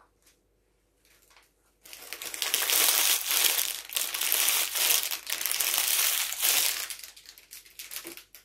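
Footsteps crunching through snow, a dense crunching that starts about two seconds in, runs for about five seconds and then thins out to a few scattered crackles.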